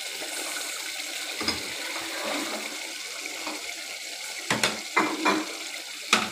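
Thick chicken gravy bubbling and sizzling in a pan over a gas flame turned down low, a steady hiss. A few sharp clicks or pops, the loudest of them clustered in the second half.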